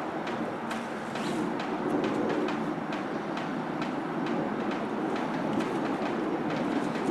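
A steel shovel digging and scraping into loose soil, with short scraping clicks about two or three times a second, over a steady low rumble of unknown source.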